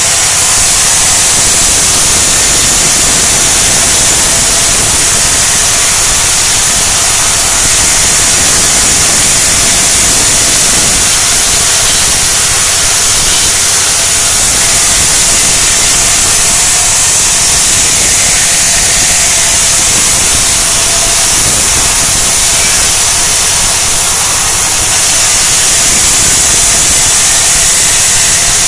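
Vertical band saw running and ripping dry sengon (albizia) boards: a loud, steady, high-pitched noise with a faint steady hum underneath.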